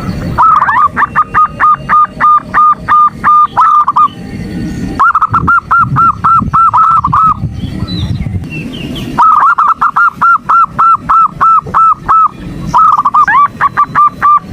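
Female zebra dove (perkutut) calling: rapid runs of short repeated coos, about four a second, in four bursts separated by pauses of about a second. This is the female's call used as a lure to rouse male perkutut into calling.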